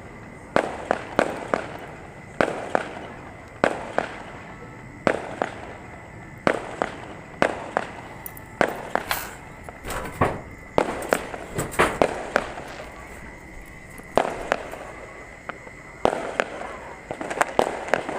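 Fireworks going off: a long, irregular string of sharp bangs, often two or three close together, each trailing off in a short echo.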